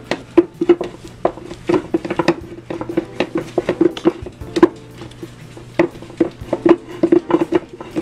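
A wooden spoon stirring a thick flour mixture in a glass jar, with irregular knocks and clicks of the spoon against the glass. Background music plays underneath.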